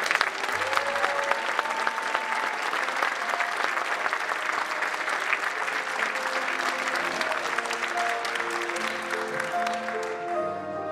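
Audience applauding steadily, then a piano begins playing its introduction near the end.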